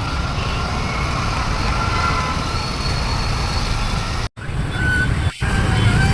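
Traffic jam noise: a steady low rumble of vehicle engines, with faint held tones over it. The sound cuts out for a moment a little after four seconds.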